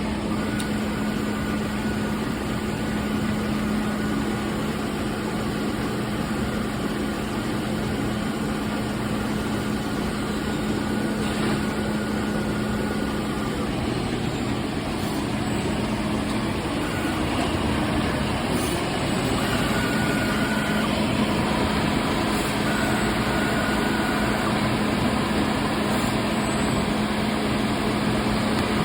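Thermwood CNC router running: steady machine noise over a constant low hum, with a thin high whine that comes and goes.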